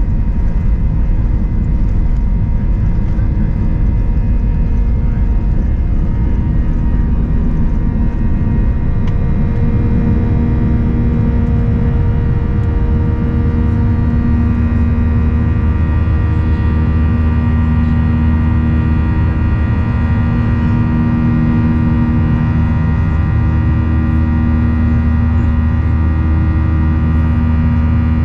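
Boeing 737-800's CFM56 jet engines at takeoff thrust, heard from inside the cabin: a loud, steady noise with several steady whining tones. Under it, rumble from the wheels on the runway eases about nine seconds in as the plane lifts off and climbs.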